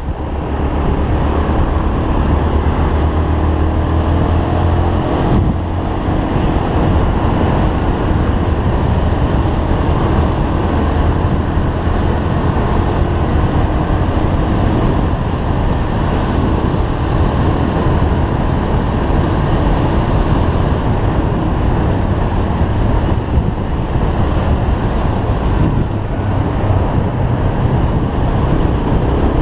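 Motorcycle riding at road speed: heavy wind rush over the microphone, with the engine running underneath.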